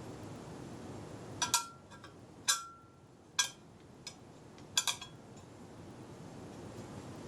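Hard parts of a router table plate clinking against each other or a hard surface during assembly: about five sharp clinks, two of them ringing briefly, over a steady low background hum.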